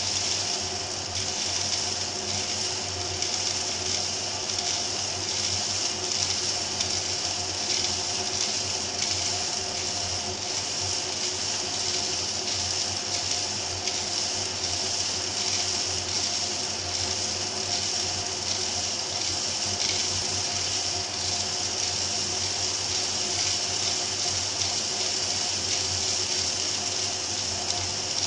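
Home-built vacuum cocoa winnower running: a vacuum motor's steady suction hiss and hum through PVC pipes, with cracked cacao bean pieces rattling down the pipe while the light husks are drawn off.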